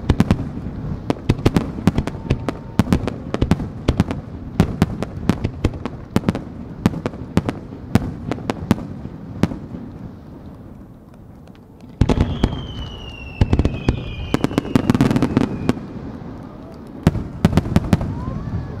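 Aerial firework shells bursting in a rapid run of sharp bangs and pops, easing off for a couple of seconds before a heavy boom about twelve seconds in. After the boom, whistling fireworks with a falling pitch sound over further bangs.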